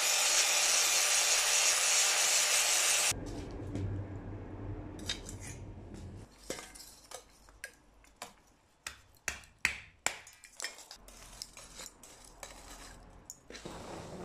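Angle grinder with an abrasive disc grinding scale off a hardened knife blade, to leave bare steel that will show its tempering colours; it runs as a steady hiss and stops about three seconds in. Then lumps of charcoal clink and clatter as they are set one by one into a metal pan brazier, a dozen or so sharp clinks.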